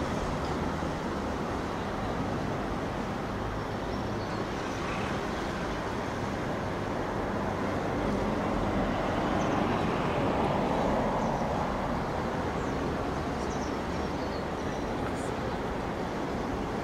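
Steady city road-traffic noise: a continuous hum of passing cars that swells a little about ten seconds in.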